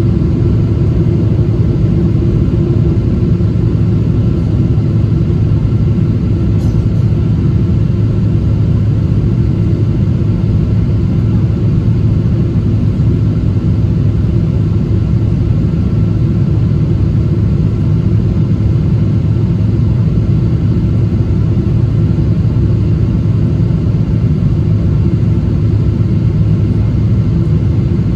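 Steady cabin noise inside a Boeing 777-200 in flight: a loud, even rumble of the engines and the airflow, with a faint steady high tone over it.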